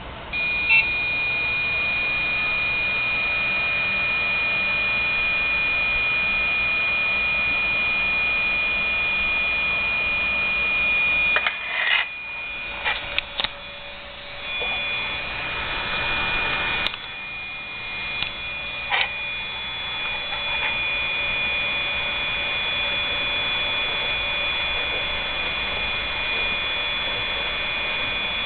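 PC motherboard speaker giving a steady high-pitched buzz at POST, starting about half a second in, with a few clicks and breaks in the middle, over a low steady hum. The buzz is a BIOS warning that the system fan has failed: no system fan is plugged into the motherboard.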